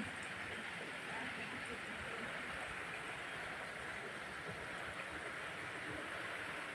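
Steady, even hiss of rushing water, with no distinct events.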